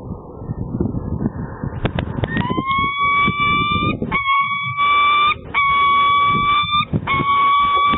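Peregrine falcon giving a series of long, level-pitched calls, each about a second long with short breaks between, starting about two seconds in and growing louder. Wind rumbles on the microphone before and under the calls.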